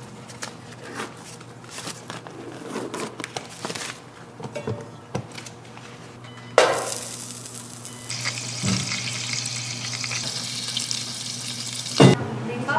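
Utensils clicking and scraping, then a sudden sizzle about halfway through that settles into steady frying as souffle pancakes cook on a hot griddle. A sharp knock near the end.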